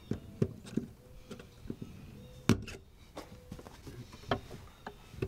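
Small irregular clicks and taps of a screwdriver working the metal hose clamp on a fuel pump's fuel line, with one sharper click about two and a half seconds in.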